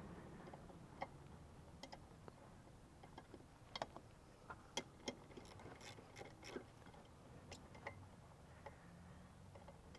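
Faint, scattered clicks and light taps of hand tools and bolts being handled, at irregular moments rather than in a steady rhythm.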